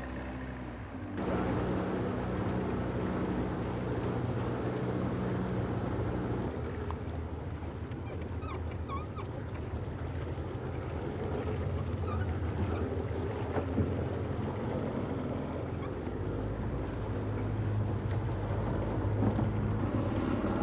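Outboard motor of a small boat running steadily while underway through floodwater, its note shifting about six seconds in. A few short high squeaks sound around the middle.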